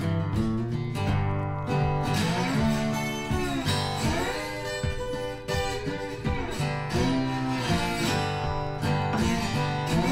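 Background music led by acoustic guitar, strummed and picked with some sliding notes.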